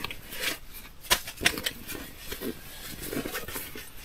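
Camping gear being handled: irregular rustling of fabric and packing, with a few sharp clicks and knocks about a second to a second and a half in.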